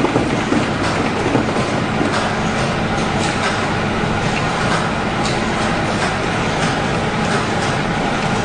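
Automatic transformer soldering line running: a steady mechanical din with a constant low hum and scattered faint clicks as its conveyor moves rows of small transformers along.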